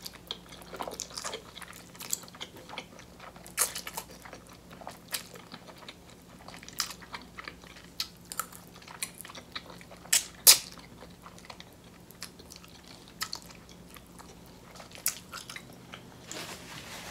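Close-up chewing of a big mouthful of spicy black bean noodles, with irregular mouth clicks and smacks, the loudest about ten and a half seconds in.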